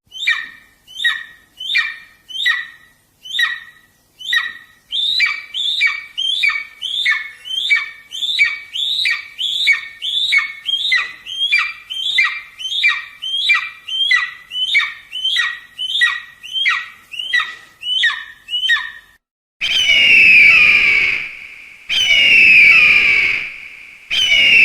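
Eagle calling: a long series of short, falling calls, about two a second, then near the end longer, louder calls about two seconds each.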